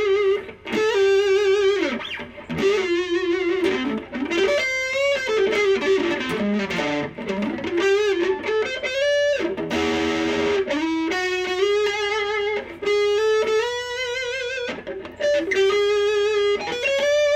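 Epiphone Wilshire P90 Reissue electric guitar played on its neck P90 pickup through an amp: a slow lead melody of sustained single notes with wide vibrato and string bends, in phrases with brief pauses between them.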